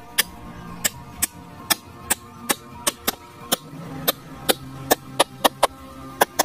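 Bamboo stakes being driven into sandy ground with the back of a small hatchet: a run of sharp, fairly regular knocks, about two to three a second.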